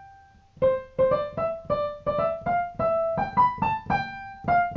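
Piano music: a single held note dies away, then about half a second in a quick melody of separate notes begins, about four notes a second.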